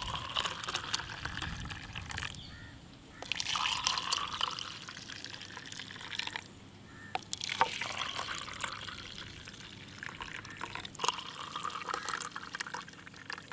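Thick, frothy blended fruit juice poured from a jug into plastic cups, a splashing, gurgling stream filling one cup after another in several separate pours with short pauses between.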